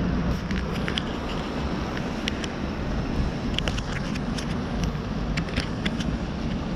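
Honda VTX 1800C's big V-twin idling with a steady low rumble, with a scatter of light clicks over it.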